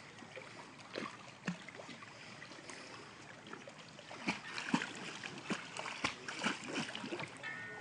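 Water splashing as dogs paddle and swim: a few single splashes about a second in, then a quick, irregular run of sharper splashes in the second half.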